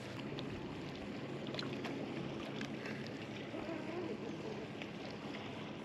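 Steady wash of water and wind around a small fishing boat sitting on the bay, with a few faint clicks.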